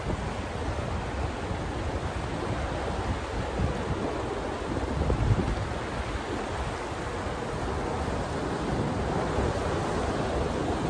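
Steady rush of turbulent water churning in the tailwater below a hydroelectric dam's outflow, with a low rumble underneath.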